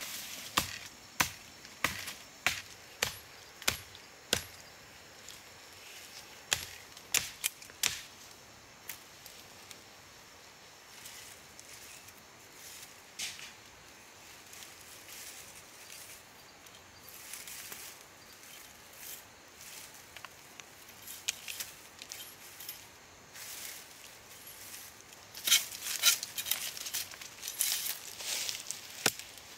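A run of sharp knocks and cracks, about one a second at first, then scattered, then a quick flurry of them near the end, over a faint hiss.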